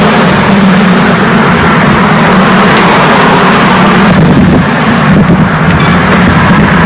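Loud, steady road-traffic noise with wind on the microphone, easing briefly about four seconds in.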